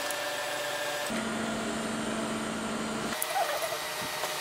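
Industrial sewing machine stitching through heavy denim with a steady hum; the stitching stops at the very start, runs again from about a second in, and stops about three seconds in.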